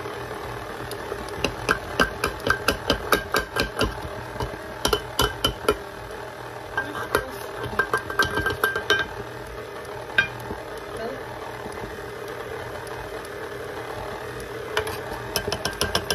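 Electric mixer motor running steadily while flour is beaten into cookie dough. Over it come several runs of quick, ringing clinks against the mixing bowl, about five a second.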